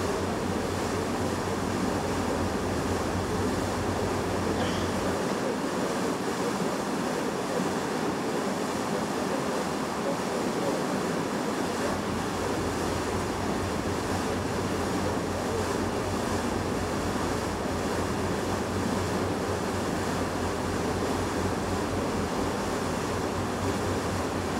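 Steady rush of wind and water at the bow of a coastal passenger ship under way, with a low steady hum underneath that drops away for several seconds near the middle.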